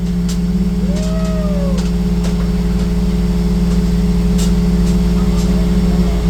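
A large engine or machine runs steadily with a deep hum. About a second in, a brief tone rises and then falls, and a few light clicks come later.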